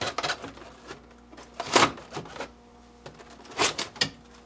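A plastic refrigerator evaporator cover being handled and pulled off: a few separate plastic knocks and scrapes, the loudest about two seconds in and two more near the end.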